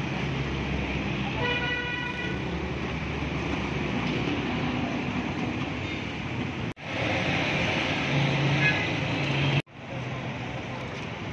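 Road traffic noise with a vehicle horn tooting once, briefly, about a second and a half in. The sound cuts out sharply twice later on.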